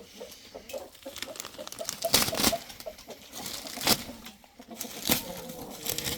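Hens clucking softly and repeatedly in short notes, with a few louder brief rustling bursts, about two seconds in, near four seconds and near five seconds, from wood shavings being handled and spread on the hen-house floor.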